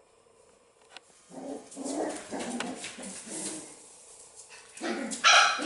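Six-week-old Pumi puppies vocalising at play in a run of short rough bursts, then one loud sharp bark about five seconds in.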